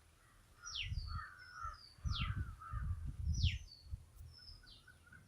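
A bird repeats a call about every second and a half: a short high note followed by a quick downward-sliding whistle. Beneath it, a low rumble comes in about a second in and is loudest from about two to three and a half seconds in.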